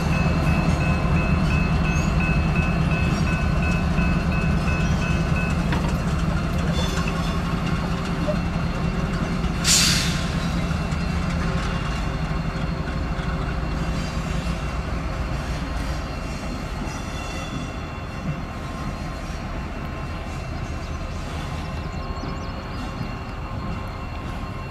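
Diesel locomotives leading a freight work train, their engines and wheels running steadily and fading as the train moves away. About ten seconds in there is one brief, sharp hiss.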